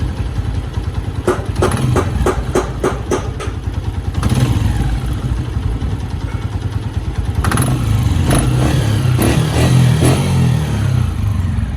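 Honda CG 125's air-cooled single-cylinder four-stroke engine running with bursts of sharp, irregular knocking, two spells of it, one early and one in the second half. The knock is the one that the title ties to the petrol running low.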